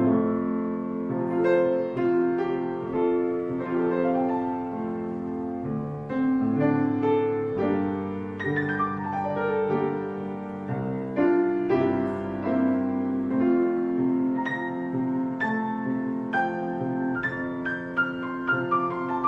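Background piano music: a slow, gentle melody of single struck notes over sustained chords.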